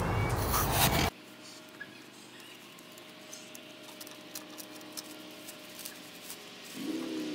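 Faint clicks and small knocks of gloved hands handling the metal tines of a garden-tractor rototiller attachment. A louder steady noise cuts off abruptly about a second in, and a low wavering hum comes in near the end.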